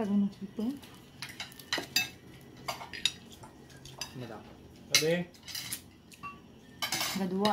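Spoons and forks clinking and scraping against plates and bowls while people eat, a scatter of short, sharp clinks at irregular moments.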